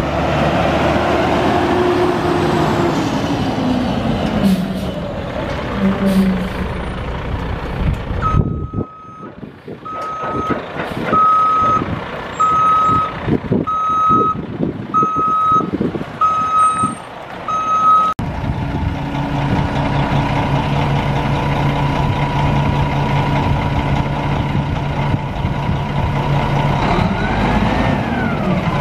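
Caterpillar C13 diesel of a Kenworth T800 dump truck running, its pitch falling over the first few seconds. A reversing alarm then beeps steadily about once a second for about ten seconds, and after that the diesel idles steadily.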